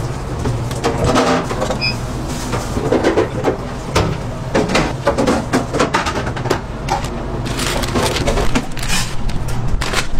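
Food-stall work noise: a steady low machine hum under irregular clatter, knocks and rustling from handling the burger press, wrappers and foil bags.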